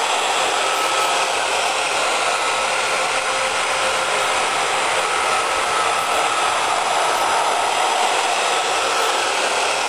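Roomba robot vacuum running steadily, its suction fan and brushes making an even whir with a faint steady whine, as it vacuums up a patch of dust.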